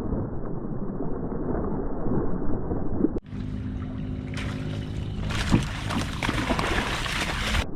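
Water and wind noise around a kayak on a river. About three seconds in the sound abruptly turns brighter and fuller, with a faint steady low hum and splashing hiss.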